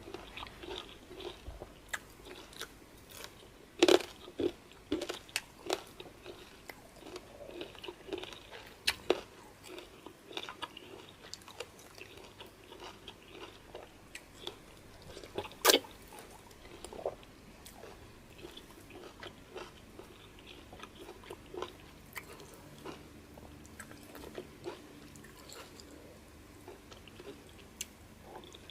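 A man eating peanut soup with fufu and meat by hand, close to the microphone: chewing and mouth smacks with many short sharp clicks, the loudest about four seconds in and again about halfway through.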